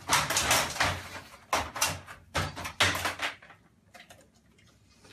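Pet door flap clattering and knocking as a dog pushes at it, with about seven sharp knocks in the first three and a half seconds. It then settles to a few faint clicks.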